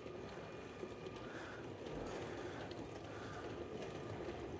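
LEGO Powered Up train running along plastic track: a faint, steady rattle of its motor and wheels.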